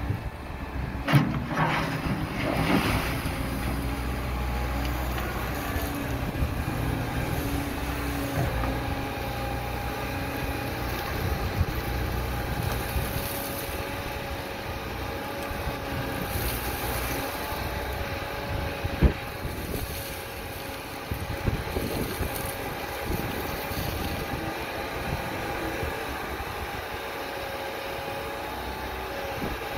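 Terex TW85 wheeled excavator's diesel engine running steadily under hydraulic load as the arm and rotating bucket spread gravel, with a steady whine coming in about a third of the way through. Sharp knocks stand out about a second in and again near the middle.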